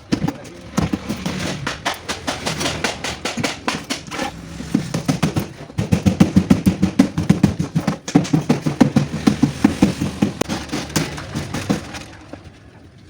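Rapid, irregular knocking and clatter of tools working on a refrigerator's metal parts, several strokes a second, densest in the second half and dying away near the end.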